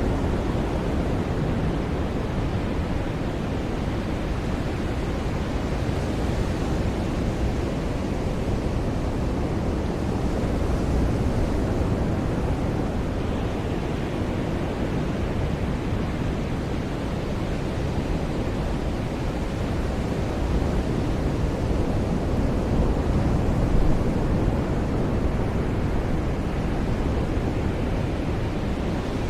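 Ocean surf on a beach: a steady rushing wash of waves, rising into a slightly louder surge about four fifths of the way in.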